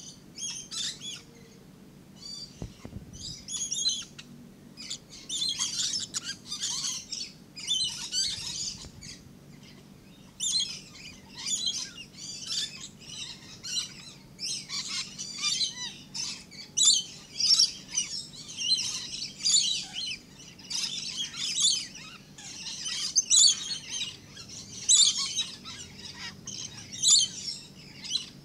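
Several lorikeets calling: shrill, rapid chattering calls in clusters of about a second, overlapping and following one another almost without pause.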